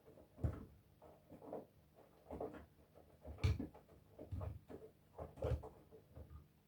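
Front-loading washing machine drum tumbling a load: wet laundry lifted and dropped with a soft thud and swish about once a second, stopping near the end.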